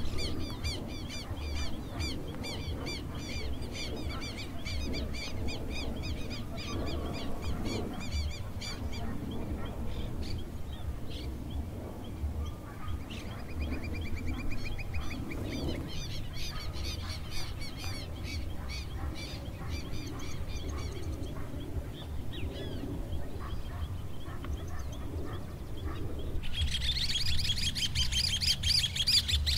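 Birds calling over and over above a steady low rumble. The calls thin out in the middle, and a dense, louder chorus of calls starts a few seconds before the end.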